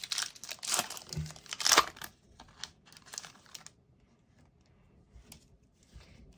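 Foil wrapper of a trading-card pack tearing and crinkling as it is opened, loudest in the first two seconds, then a few faint ticks as the cards are handled.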